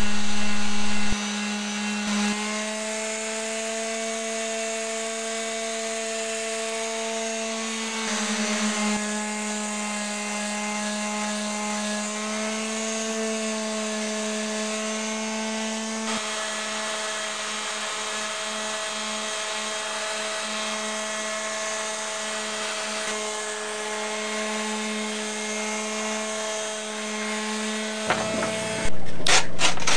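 Electric orbital sander with 80-grit paper running on a cured fiberglass-and-epoxy daggerboard tip, a steady motor hum whose pitch shifts slightly now and then as the pressure on the blade changes.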